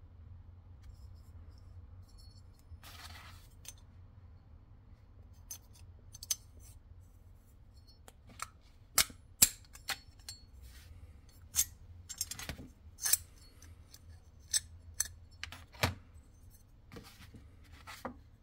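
Antique brass Chinese padlock being worked by hand: a short scrape about three seconds in, then a series of sharp metallic clicks and clinks as the key is pushed in through the cross-shaped keyhole and the brass shackle bar is slid out of the lock body.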